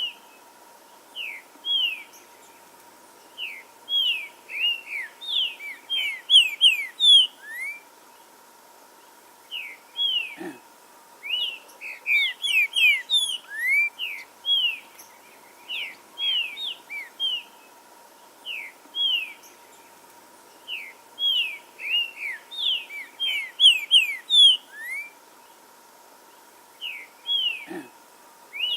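Green-winged saltator (trinca-ferro) singing: loud phrases of quick, short whistled notes, most sliding downward, separated by pauses of a second or two. A faint steady hum runs underneath.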